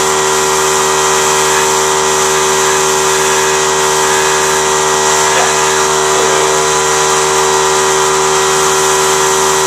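Steady drone of a machine motor running continuously, a hum made of several constant tones with a hiss above it, never changing in level.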